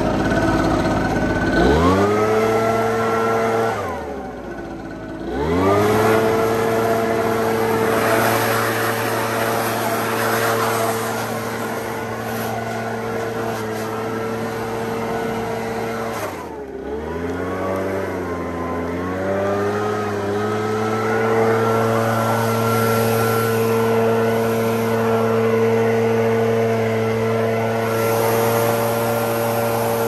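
Leaf blower revving up to full speed and running steadily with a rush of air. It drops off and revs back up about four seconds in, and again about halfway through.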